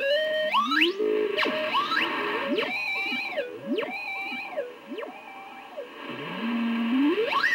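Electronic instrument played by hand: pitched tones swoop up, hold on level notes and slide down again, often two or three at once, in a slow, irregular pattern.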